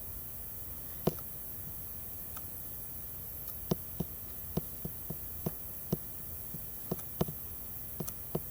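Homemade fluffy slime being squeezed and poked by hand, giving irregular small pops and clicks, about one or two a second, over a steady low hum.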